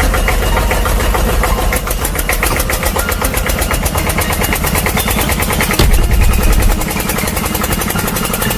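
Engine-like running sound with a rapid, even rattling knock and a deep rumble, which gets louder for about a second near the middle.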